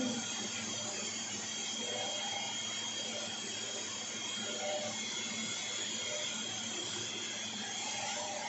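5-axis CNC machine's spindle running steadily with a small tapered cutter milling a metal block under flood coolant: a steady high whine over an even hiss of machining and coolant spray, muffled by the enclosure's door window.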